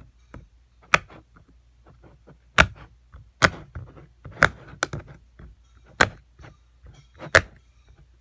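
Silicone pop-it fidget toy being pressed bubble by bubble with the fingers, each bubble giving a sharp pop: about seven loud pops roughly a second apart, with fainter clicks between. This is the toy's satisfying side, where the bubbles pop crisply.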